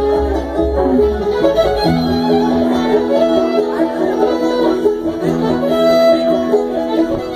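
Live bluegrass string band playing, a fiddle holding long notes over acoustic guitar and upright bass.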